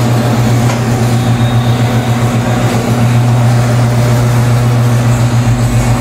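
Electric motor of a tire-changer machine running with a steady low hum as its turntable spins a motorcycle wheel, working the tire bead over the rim against the mount/demount head.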